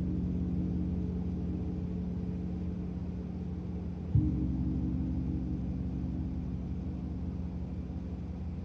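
A gong ringing with low, sustained tones that slowly fade, struck again about four seconds in and left to ring on.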